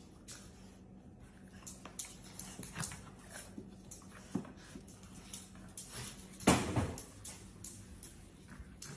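Two Labradors, an adult and a puppy, playing tug with a plush toy on a tile floor: scattered light clicks of claws on the tiles. About six and a half seconds in, one short, louder dog sound stands out.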